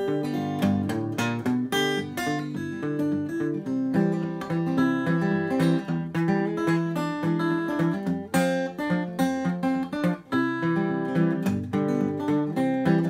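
Solo acoustic guitar fingerpicked with a thumbpick: a steady bass pattern under a picked melody, played as an instrumental passage with no singing.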